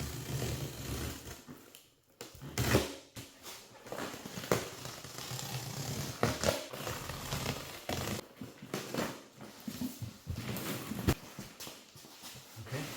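Cardboard box and packaging being opened and handled: irregular scrapes, rips and rustles, with a few sharper strokes.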